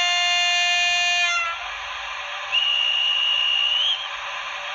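Märklin 37584 glass-train model's sound decoder playing a multi-tone horn that cuts off about a second and a half in, then a single high whistle of about a second and a half that rises slightly at its end, over a steady hiss.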